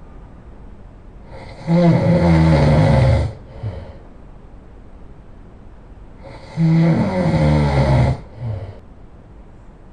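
A person snoring loudly: two long snores about five seconds apart, each followed by a short, softer breath.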